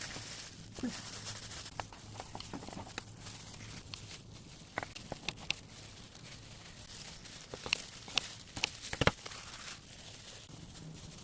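Scattered light clicks and taps with some crinkling, as from handling food and utensils in a kitchen, over a faint steady hum.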